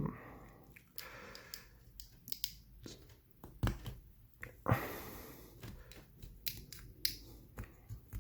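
A serrated blade cutting into a soft plastic funnel: irregular quiet clicks and short scrapes as the notch is cut.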